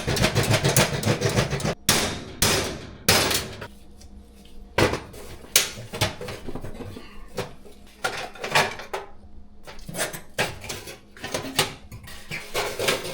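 Metal hand tools clinking, scraping and knocking against the metal inside a gas oven while working at a stuck igniter screw: a dense rattle of scraping in the first two seconds, then scattered sharp clinks and knocks.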